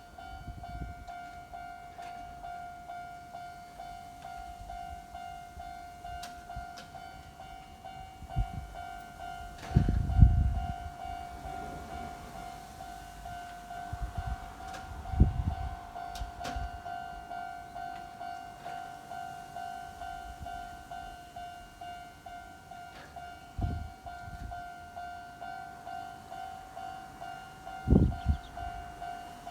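Japanese level crossing warning bell ringing with an even pulsing tone, about two strikes a second, with a few short low thuds from passing train traffic, the loudest a double thud near the end.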